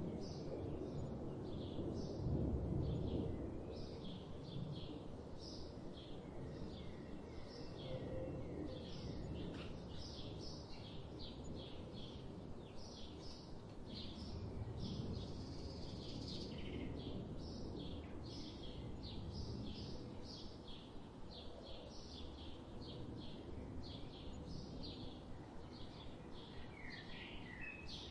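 Small birds chirping, short high calls repeated a few times a second, over a steady low rumble. Near the end a different call slides down in pitch.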